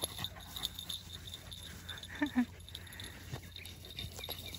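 Dogs panting, with two quick short barks about halfway through.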